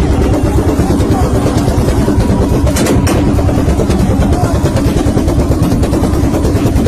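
Tuned car engine revved hard and held high, the level fluttering fast, with two sharp exhaust pops about three seconds in; the exhaust is backfiring with flames.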